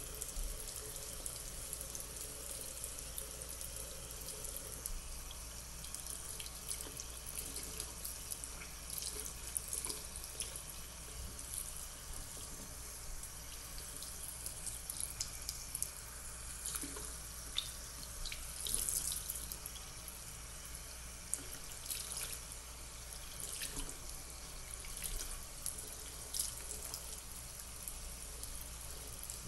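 Bathroom sink faucet running in a steady stream into the basin, with occasional splashes and small wet sounds as hands work a doll's long hair under the water.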